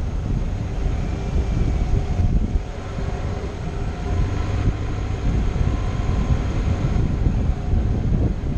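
Low, fluctuating rumble of a car rolling slowly, with wind buffeting a camera mounted on the outside of the car.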